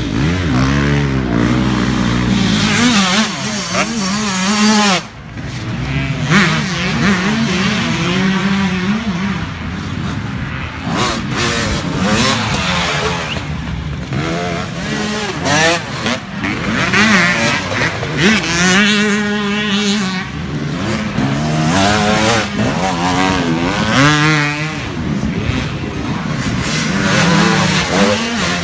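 Motocross dirt bikes racing past one after another, their engines revving up and falling back again and again as riders work the throttle through the turn.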